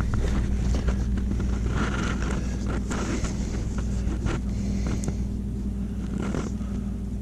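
Paper mounting template being handled, with a few short crinkles, over a steady low hum.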